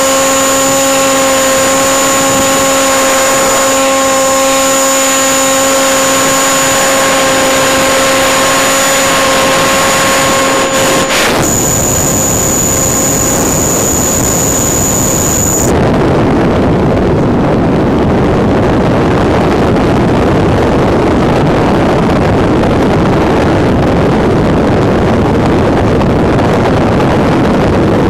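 Steady whine of an RC model airplane's motor heard from the onboard FPV camera, holding one pitch and stopping about 11 seconds in. A thin high steady tone follows for about four seconds, then a loud even hiss fills the rest.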